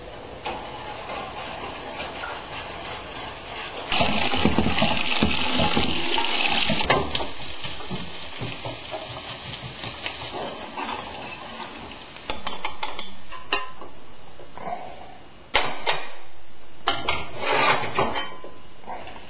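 Vegetables sizzling in a hot steel skillet while a spatula stirs them, scraping and clicking against the pan. The sizzle jumps up abruptly a few times and fades between.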